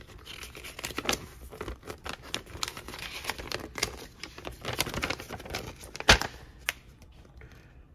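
A folded paper instruction sheet being unfolded and handled, with irregular crinkling and rustling, and one sharp snap of the paper about six seconds in.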